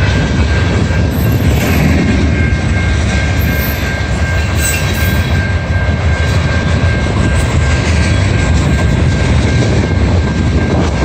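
Freight train of enclosed multilevel autorack cars rolling past, a steady rumble of steel wheels on the rails. A thin high whine runs through it and stops near the end.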